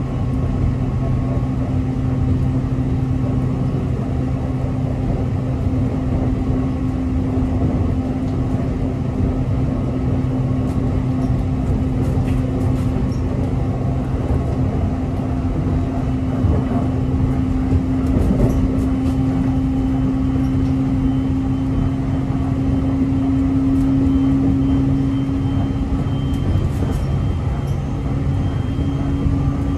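Aoi Mori Railway electric train running between stations, heard from inside the passenger car: a steady rumble of wheels on rail under a steady hum that shifts slightly in pitch near the end, with a few faint ticks.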